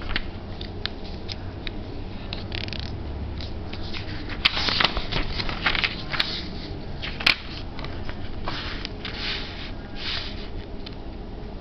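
A sheet of paper being handled and folded on a table: rustling and sliding, with short sharp crinkles and ticks as the folds are pressed in, the loudest a little over four seconds and about seven seconds in.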